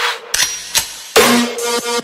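Electronic hip-hop background music with the deep bass dropped out, leaving a few sharp percussion hits and synth notes in a short break before the full beat returns.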